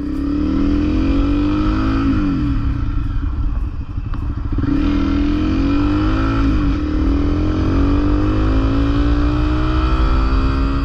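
Honda CRF250L single-cylinder engine under way, pitch climbing as the bike accelerates, with a drop at each gear change about two and four and a half seconds in before it climbs again.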